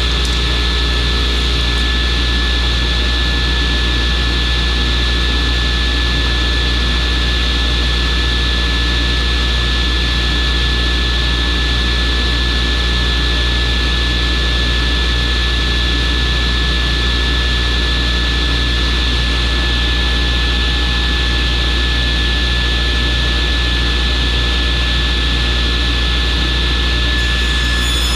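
Workshop dust collector running steadily: a constant roar over a low hum, with a thin high whine.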